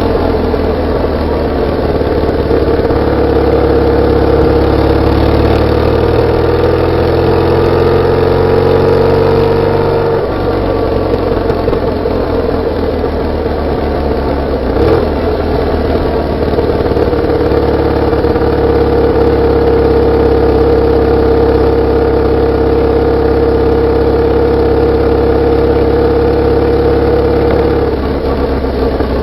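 BMW R850R's flat-twin boxer engine and exhaust, heard close to the exhaust while riding. The engine note climbs slowly for about ten seconds, drops abruptly, then holds steady with a slight change near the end.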